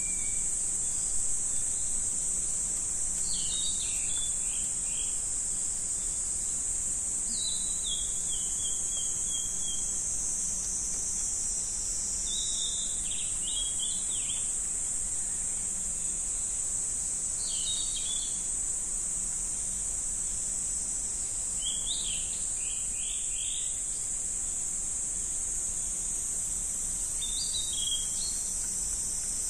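A steady, high-pitched insect drone of crickets or cicadas, with short bursts of quick chirps every four or five seconds.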